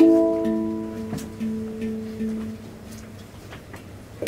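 Steel handpan played by hand. A cluster of notes struck together rings out and slowly fades, with a few soft taps on a low note in the first couple of seconds. A fresh strike comes right at the end.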